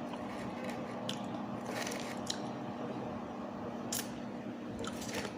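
A person chewing chicken wings close to the microphone: soft mouth and chewing sounds with a few sharp smacks or clicks scattered through, over a steady low hum.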